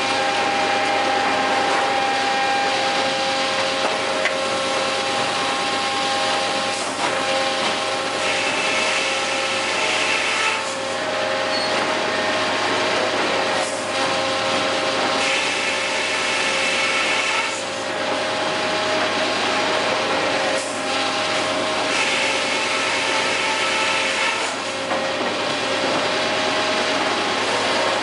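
Overhead sawmill's circle saws running with a steady whine. Three times, about seven seconds apart, a harsher high hiss joins for two or three seconds as the saws cut wood.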